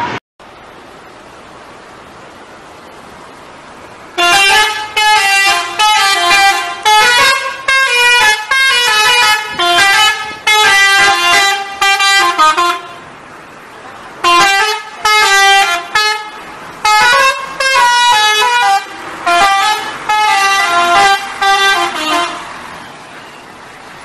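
Indonesian bus 'telolet' multi-tone air horn playing a rapid tune of changing notes. It starts about four seconds in and runs in two long stretches with a short pause between them.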